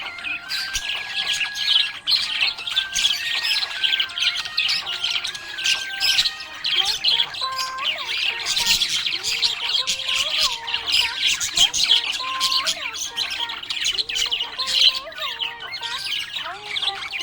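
Budgerigar chirping and squawking in a dense, unbroken stream of short, rapid calls.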